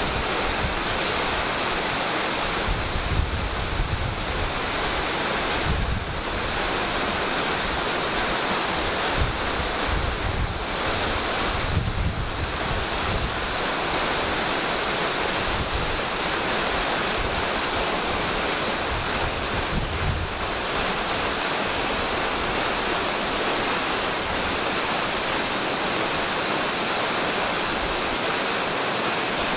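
Mountain waterfall and stream rushing, a steady, even wash of falling water, with a low rumble of wind on the microphone at times.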